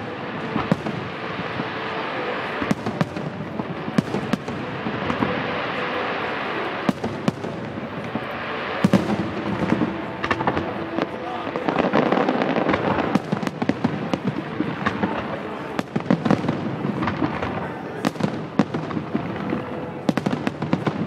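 Fireworks going off: a long run of sharp bangs and crackles at irregular intervals, thickest about nine to thirteen seconds in, over a continuous background din.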